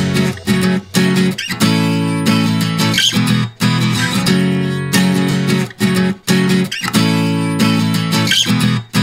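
Background music led by a strummed acoustic guitar, chords changing every second or so.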